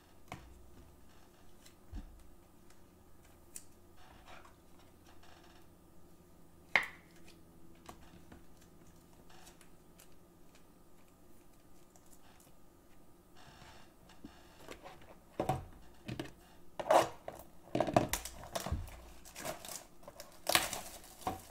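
A quiet stretch with a few light clicks, then, from about two-thirds of the way in, a run of plastic crinkling, rustling and knocks as the shrink-wrap is torn off a trading-card box.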